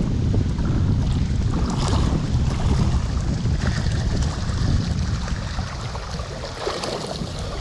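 Wind buffeting the camera microphone: a steady low rumble that eases a little near the end.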